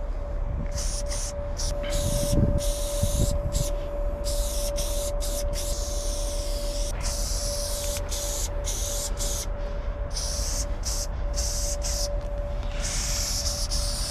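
Aerosol spray-paint can hissing in repeated bursts, some short and some lasting a few seconds, as lines are sprayed onto a wall, with brief gaps between. A steady hum and a low rumble run underneath.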